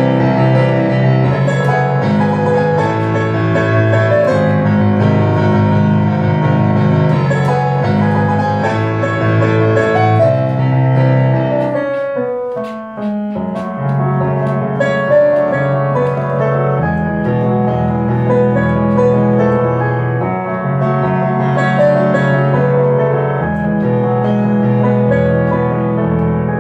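Roland RD-700NX digital stage piano played very fast: dense runs of quick notes over held bass notes. About twelve seconds in, a quick descending run leads to a short dip before the playing picks up again.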